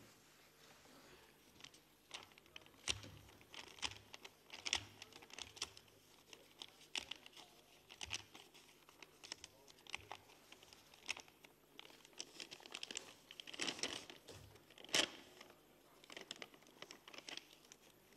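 Paper rustling and crinkling as ballot papers and envelopes are handled, with many short rustles and small knocks.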